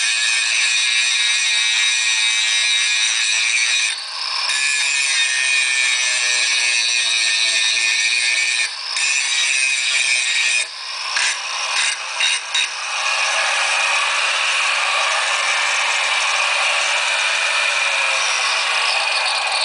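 Makita 9565HZ1 1100 W angle grinder running under load, grinding metal with a loud, steady noise. The noise dips briefly a few times around the middle.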